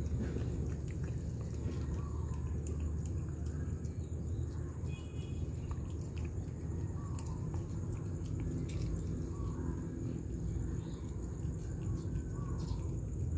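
A cat licking lickable treat paste from a squeeze tube, small wet licking clicks, over a steady low background rumble and a steady high-pitched whine.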